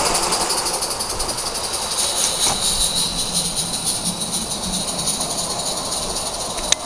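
A 16mm-scale live-steam locomotive hissing and puffing in rapid, even exhaust beats as it pulls its train of vans away. There is one sharp click near the end.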